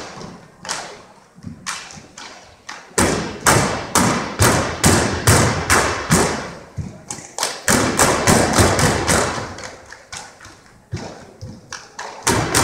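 Drill team stamping their feet and slapping in unison on a wooden gym floor: a series of sharp thuds, softer and sparse at first, then loud at about two to three a second from about three seconds in, with a short pause near the end before they start again.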